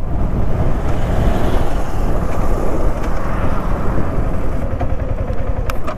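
Motor vehicle on the road: a steady, loud rumble and hiss of engine and road noise.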